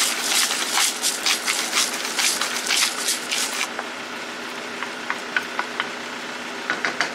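Thick spinach-and-rice mixture cooking in a nonstick pan and being stirred with a wooden spoon: dense clicking and scraping for the first three and a half seconds, then quieter with a few soft ticks. A steady machine hum runs underneath.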